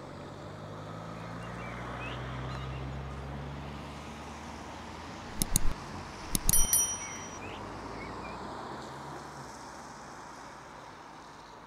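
Outdoor road ambience with a motor vehicle's engine running close by, a steady low hum that stops about three-quarters of the way through. In the middle come a few sharp metallic clicks with a brief high ringing, the loudest sounds.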